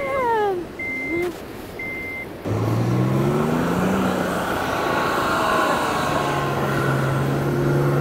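Three short electronic beeps about a second apart. About two seconds in they give way to a Mercedes-Benz W124's diesel engine revving up and then holding steady as the sedan drives over loose beach sand, spinning its wheels and throwing up sand.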